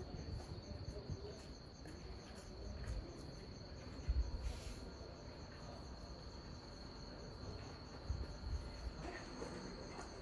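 Crickets chirping at night: a steady high trill with a faint pulsing above it, over a low rumble and a few small knocks.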